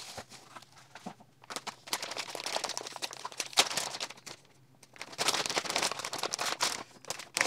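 Plastic packaging crinkling in irregular bursts as bubble wrap and a metallised anti-static bag are handled. There is a short lull about four seconds in, then louder crinkling of the anti-static bag near the end.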